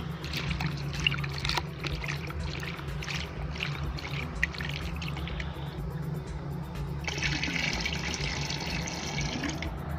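Water sloshing and splashing as fertilizer is stirred to dissolve in a plastic bucket, then a steady rush of liquid about seven seconds in as the bucket is tipped and the solution poured into a barrel, stopping shortly before the end.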